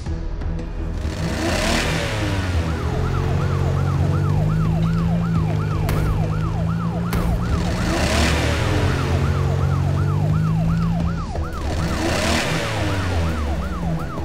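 Cartoon police siren wailing in a fast rise-and-fall, about three times a second, over a steady low engine rumble. Whooshes of a vehicle rushing past come about two, eight and twelve seconds in.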